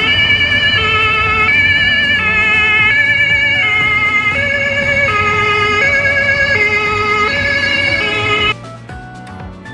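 Two-tone hi-lo ambulance siren, switching between a high and a low note about every three-quarters of a second with a slight warble. It stops suddenly about eight and a half seconds in.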